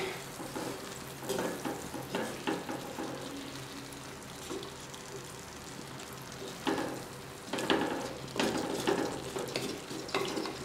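Wooden spatula stirring and scraping thick frying onion-tomato masala in a clay pot, over a low steady sizzle. Irregular louder scraping strokes come now and then, more of them in the second half.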